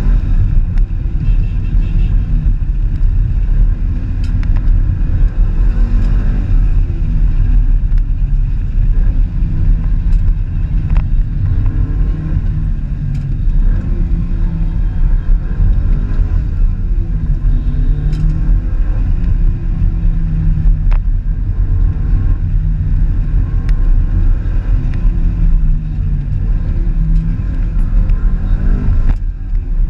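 A car driving, with heavy low engine and road rumble. The engine note rises and falls repeatedly as the speed changes, and there are scattered sharp ticks and clicks.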